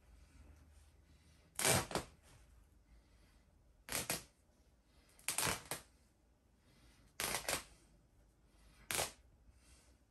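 Handfuls of polyester fiberfill stuffing being torn out of a large plush toy: five short rustling rips, about one every one and a half to two seconds.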